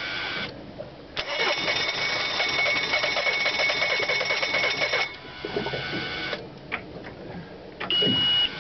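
Mercury 90 hp four-stroke outboard starting in the cold. Its steady running sound drops out about half a second in. From about a second to five seconds in there is a louder, rhythmic mechanical run with a whine, then a quieter broken stretch. A short, loud, high steady beep sounds near the end.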